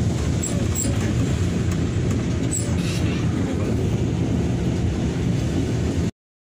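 Cabin noise inside a Hino RK8 R235 diesel bus on the move: a steady low rumble of engine and road noise. It cuts out abruptly to silence near the end.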